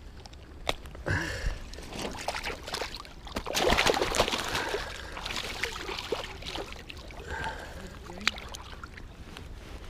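River water running and trickling, with scattered clicks and a louder burst of rough noise for about a second, some three and a half seconds in.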